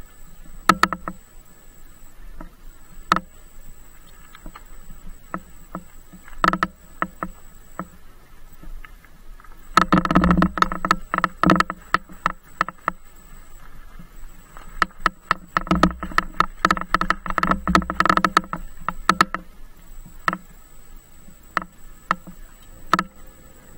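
Bicycle rattling and knocking as it jolts over rough off-road ground: scattered single knocks at first, then two long runs of dense rattling about ten and fifteen seconds in.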